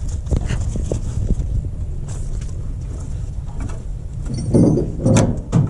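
Steady low rumble of camera-mount handling noise, with a few faint clicks of a metal linkage rod being worked loose from the shutoff lever on a Roosa Master injection pump. A short low vocal sound comes near the end.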